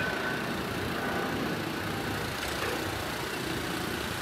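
Airbus A321 jet airliner on final approach, its engines making a steady, even rumble.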